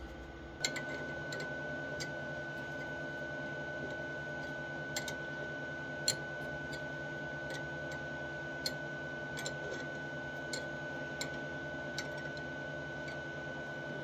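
MKS Cirrus 2 RGA mass analyser running: a steady hum with a high whine, setting in under a second in. A few faint clicks of the stainless fittings being handled are scattered over it.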